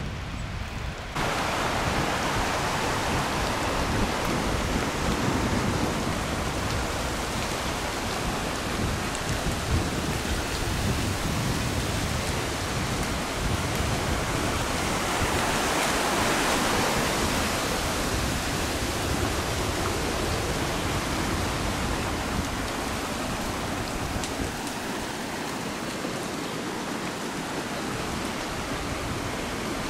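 Steady rushing noise of riding a bicycle along a gravel path beside a fast mountain river: wind buffeting the microphone, tyres on gravel and rushing water blended together. It starts abruptly about a second in and swells for a few seconds around the middle.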